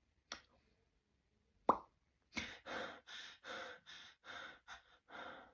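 Mouth-made cartoon sound effects: a small click, then a sharp plop-like pop with a falling pitch, followed by a run of about seven breathy bursts at roughly two a second.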